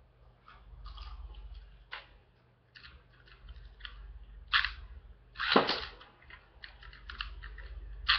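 Sharp plastic clicks as a Beyblade top is fitted onto its launcher. About halfway through comes a louder clatter as the Beyblade is launched and lands in the plastic stadium, followed by more quick clicks.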